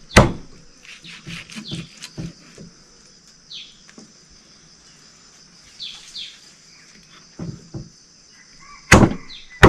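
Heavy knife chopping raw meat on a wooden chopping block: a hard chop just after the start and two near the end, with lighter knocks between 1 and 3 seconds and around 7.5 seconds. A steady high insect drone runs under it, with a few short falling bird chirps in the middle.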